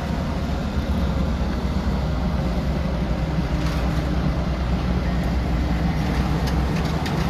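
Steady low rumble of heavy vehicle engines, easing slightly near the end, with a few faint knocks.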